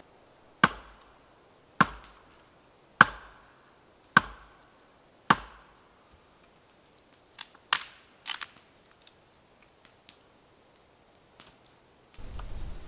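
Axe chopping into a log: five sharp, evenly spaced blows about a second apart, followed by a few lighter knocks and taps.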